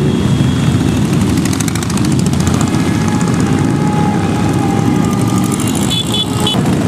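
Several motorcycle engines running as a parade of bikes and a trike pass at low speed. Near the end there are three short high beeps.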